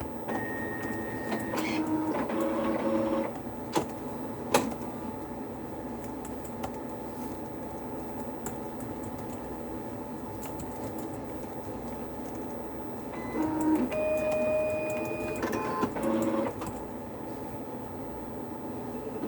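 A motor-driven office machine running in two spells, whirring with held electronic tones, with a couple of sharp clicks between them, over a steady hum.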